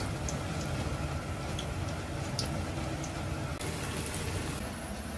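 Hot oil sizzling with a few small pops as a batch of pork deep-fries, over a steady low hum; the hiss swells briefly about four seconds in.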